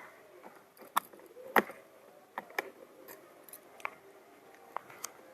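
A new motorcycle chain being handled: a few scattered light clicks and taps, irregular and spaced apart.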